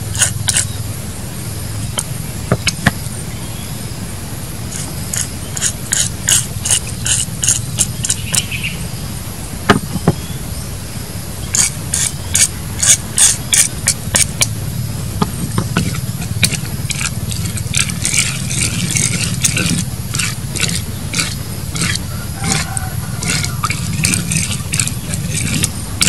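A spoon scraping and tapping against the inside of a coconut-shell bowl, stirring seasoning into soy sauce, in runs of quick strokes with short pauses between them. A steady low hum sits underneath.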